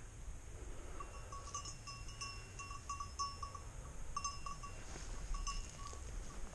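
Bell on a Gordon setter's collar jingling in irregular clusters as the dog moves through undergrowth.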